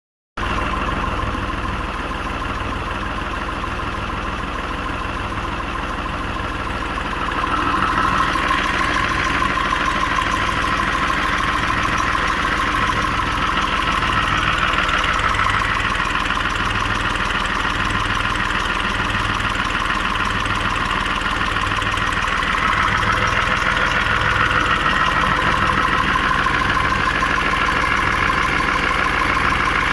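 Swaraj 735 tractor's three-cylinder diesel engine running steadily, growing a little louder about eight seconds in.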